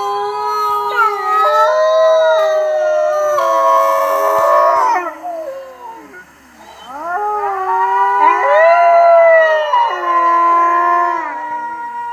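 A pack of wolves howling together in chorus, several long overlapping howls at different pitches. The chorus dies away about halfway through, then swells again and tails off near the end.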